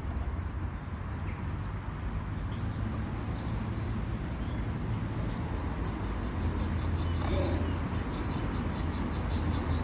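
Faint, short swan calls over a steady low background rumble, with a brief noisy burst about seven seconds in.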